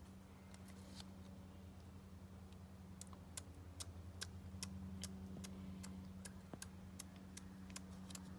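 A girl imitating a bicycle chain ticking round: a run of sharp little clicks, a few scattered at first, then quick and regular at about four a second from about three seconds in.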